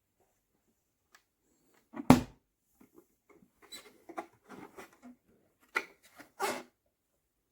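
Handling noises: a sharp knock about two seconds in, then scattered clicks and rustling, and two more knocks about six seconds in.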